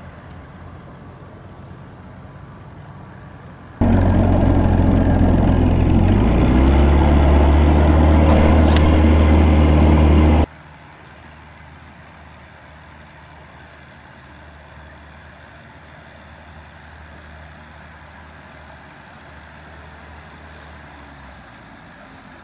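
Small outboard motor running on a bass boat. A loud close-up stretch in the middle, where the engine note steps up partway through, sits between fainter steady engine hum heard across the water.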